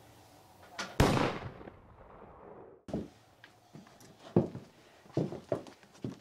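A single loud gunshot about a second in, ringing away over a second or two, then several footsteps.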